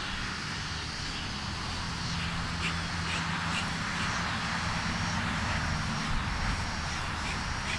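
An engine droning steadily, a little louder through the middle.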